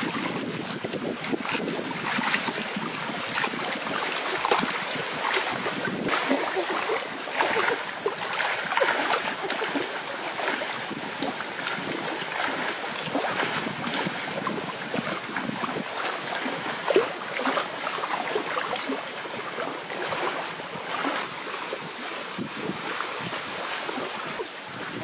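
Sea water splashing and sloshing irregularly as someone wades through the shallows, over a steady wash of small waves with some wind on the microphone.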